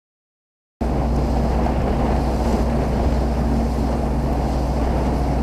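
A sailing yacht's engine running steadily under wind and water noise, cutting in suddenly about a second in.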